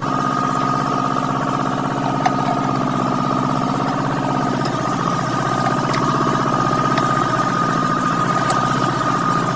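A motor or engine running steadily at constant speed, with a high, steady whine riding on its hum and a few faint clicks.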